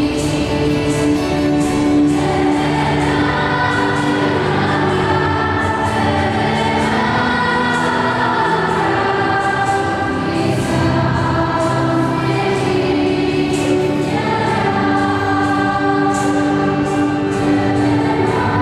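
Choir singing sacred music in long held notes.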